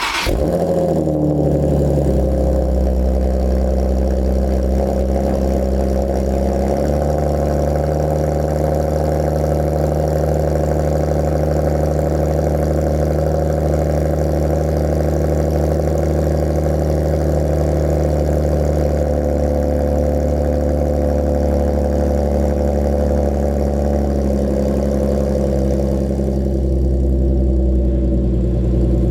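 Infiniti G37's 3.7-litre V6 running at idle through a freshly installed Motordyne exhaust, just after its first startup on the new system. The idle pitch shifts a couple of times in the first several seconds, then holds steady.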